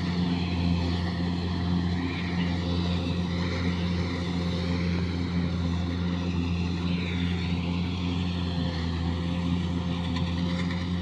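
Kubota DC70 rice combine harvester's diesel engine running steadily under load while harvesting, a constant even drone with no change in speed.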